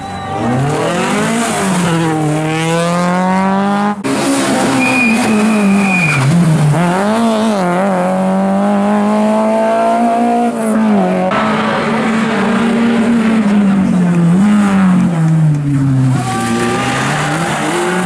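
Rally cars on an asphalt stage, engines revving hard, the pitch climbing through the gears and dropping as they brake and change down for corners. The sound cuts from one car to the next a few times.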